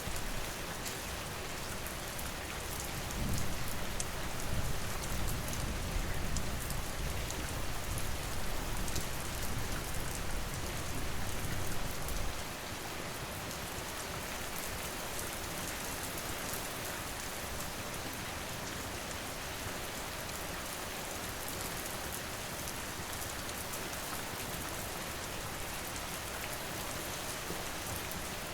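Steady rain falling, a dense hiss of drops. About three seconds in a low rumble swells beneath it and cuts off suddenly about twelve seconds in.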